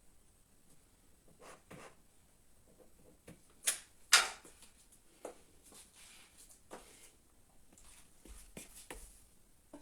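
Scattered light knocks and rustles of a person moving about between exercise sets, with two sharper knocks about four seconds in.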